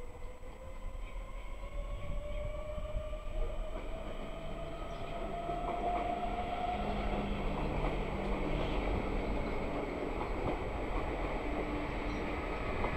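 Øresundståg electric multiple unit running into the station and past at close range, growing louder as it draws alongside. A whine rises slowly in pitch over the first half, over a building rumble of wheels on rail with scattered clicks.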